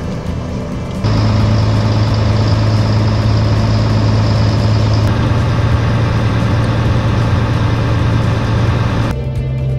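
Fishing boat's engine running steadily under way, a loud low hum that cuts in abruptly about a second in and falls away shortly before the end.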